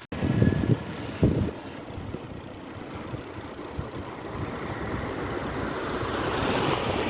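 Wind buffeting the microphone in irregular low gusts, over a steady rushing noise that grows louder toward the end.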